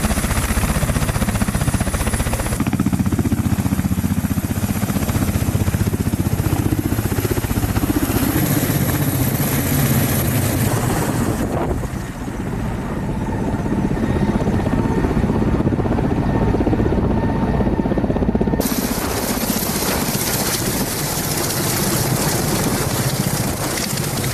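Ka-52 attack helicopter's coaxial rotors beating rapidly and steadily, together with its engines, as the helicopter runs on the ground and passes low overhead. The sound changes abruptly a few times.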